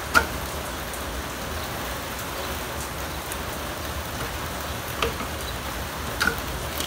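Sharp plastic click about a quarter second in, then two fainter clicks near the end, as the locking wiring harness connectors are worked loose from the truck's powertrain control module, over a steady hiss with a low hum.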